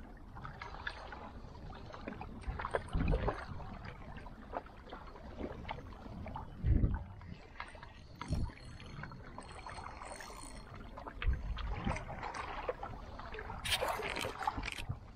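Small waves lapping and splashing against shoreline rocks, with wind knocking on the microphone in several short low thumps.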